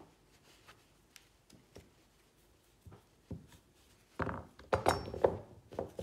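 Light knocks and taps of carrot pieces dropping onto a wooden butcher-block board as the cut glove is handled, with faint scattered clicks at first and a quick cluster of louder knocks from about four seconds in. The pieces are carrot cut clean through the glove finger.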